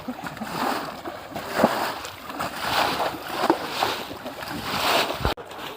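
Water splashing and sloshing in uneven surges about once a second, with a sudden break near the end.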